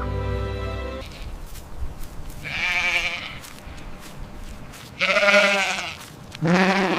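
Boer goat bleating three times, quavering calls, the second and third the loudest.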